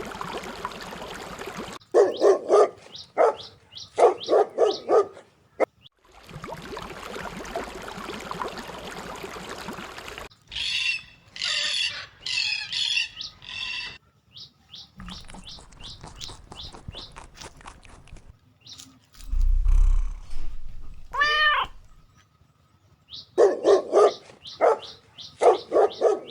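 Dog barking in quick runs near the start and again near the end, with short high bird chirps in between.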